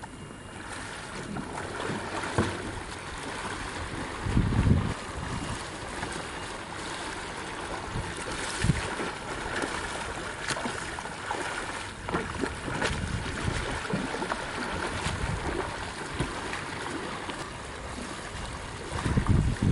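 Wind and moving water on open flatwater, with scattered small splashes from a kayak paddling and turning. Gusts of wind buffet the microphone about four seconds in and again near the end.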